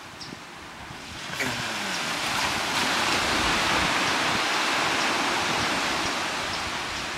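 Ocean surf: a wave breaks about a second and a half in, and its rushing wash builds and then slowly fades.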